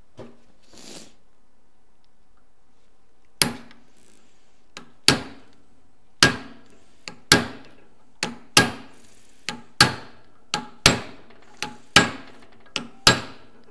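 Steel hammer striking a punch held against the nut on a 1958 VW split-case gearbox shaft, to flatten it out. The blows start about three and a half seconds in and come about once a second, often a light tap followed by a harder blow, each with a short metallic ring.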